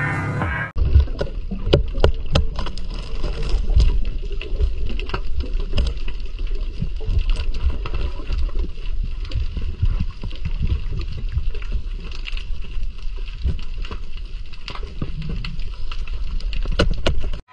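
Underwater sound from a diver's camera: a steady low rumble of water moving around the housing, with many irregular sharp clicks and crackles.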